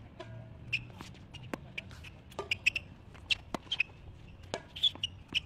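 A tennis rally on a hard court: sharp pops of the ball being struck and bouncing, mixed with short high squeaks of sneakers on the court surface.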